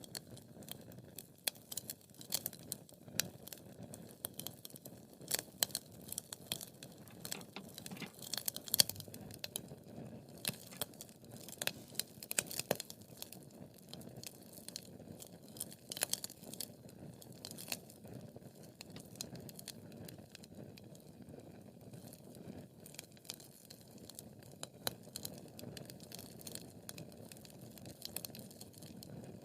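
Wood fire crackling in a fireplace: a steady low rustle of burning logs with frequent sharp, irregular pops and snaps, busiest in the first half.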